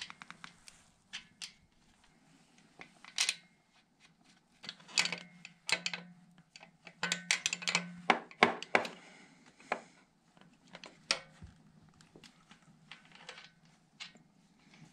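Irregular metallic clicks and clinks of hand tools and metal fittings being handled, over a low steady hum.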